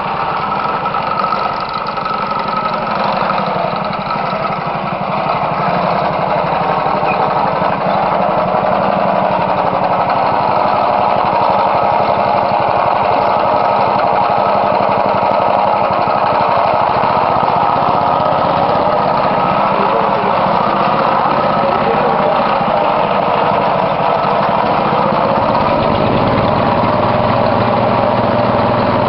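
Small engine of a simple portable well-drilling rig running steadily, with a deeper low note joining in near the end.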